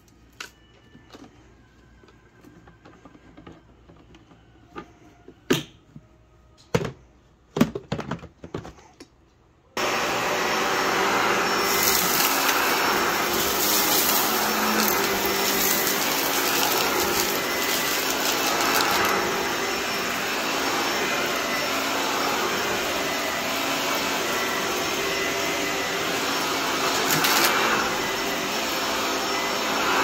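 A few sharp plastic clicks and knocks as the vacuum's dust bin is handled and fitted back, then about ten seconds in a Shark Lift-Away upright vacuum switches on abruptly and runs steadily while pushed over carpet.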